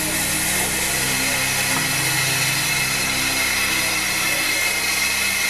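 Small steam locomotive standing and hissing steam steadily, with a low hum beneath.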